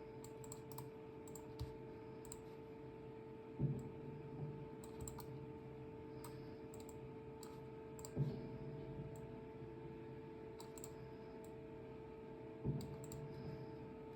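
Faint scattered clicks, like a computer mouse being clicked while working in slicer software, over a steady electrical hum. Three dull thumps stand out, about four and a half seconds apart.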